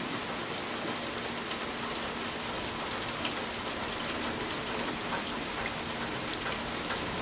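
Heavy rain pouring down steadily, with scattered sharp drop ticks.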